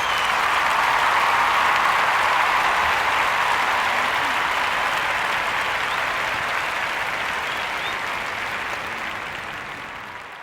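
Dense applause that swells, holds, then slowly fades out near the end.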